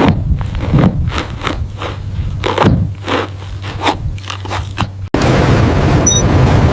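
Camel biting at a rough ball, a string of irregular crunches. About five seconds in this cuts off abruptly and a steady low rumble takes over.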